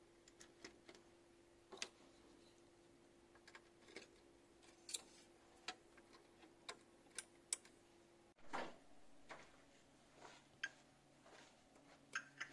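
Scattered light plastic clicks and taps of cable connectors being plugged into a servo drive's sockets, about a dozen in all, over a faint steady hum that drops lower about eight seconds in.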